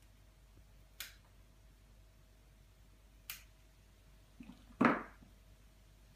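Nail clipper snipping through an Alaskan Malamute's claws: two sharp snips about two seconds apart, followed near the end by a short, louder, lower sound.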